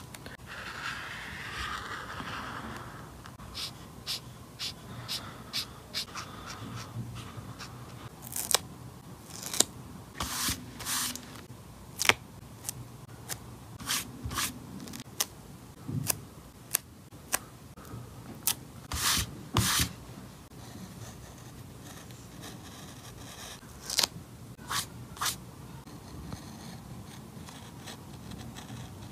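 Close-up paper-crafting sounds: a grid-paper notebook is handled, a sticker is pressed and rubbed down on the page, and a pen-style craft knife scrapes and cuts along the paper. It comes as a scatter of short, crisp scratches and taps with a soft rubbing at the start.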